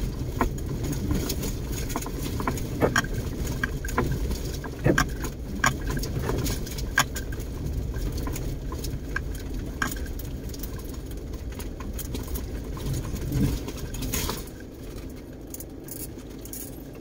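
In-cabin sound of a vehicle driving slowly over rough, uneven dirt ground: a steady low engine and road rumble with scattered rattles and knocks from the vehicle's body and contents, quieter near the end.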